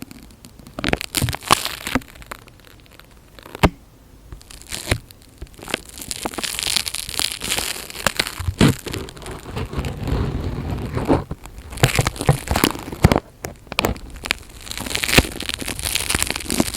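Close-miked ASMR trigger sounds: irregular crinkling and crackling with scattered sharp clicks and taps, and a few longer rustling stretches.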